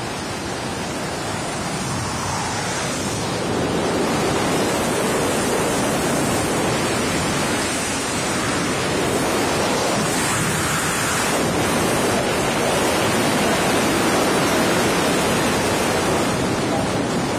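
Strong wind rushing over the microphone: a loud, steady rushing noise that swells a little in places.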